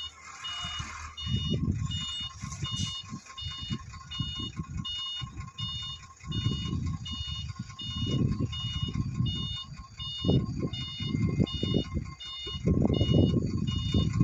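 Reversing alarm on heavy equipment beeping at a steady, even rhythm, over the uneven rumble and clatter of a bulldozer's diesel engine and tracks at work, which grows louder near the end.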